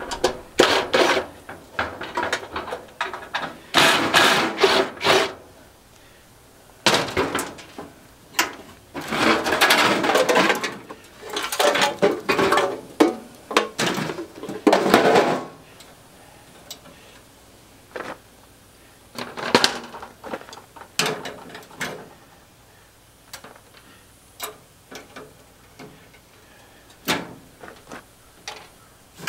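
A cordless driver run in short bursts on dryer sheet metal, with the metal panel and the drive motor assembly clanking and scraping as they are worked apart. After about 15 seconds only scattered clicks and knocks of parts being handled remain.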